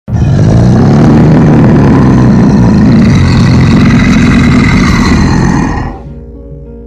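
A loud, rough rumbling noise that starts abruptly and holds steady for about six seconds, then falls away as quieter music with held notes comes in.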